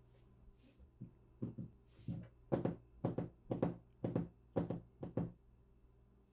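A run of about a dozen sharp knocks on a hard surface, many falling in quick pairs, starting about a second in and coming closer together before stopping about five seconds in.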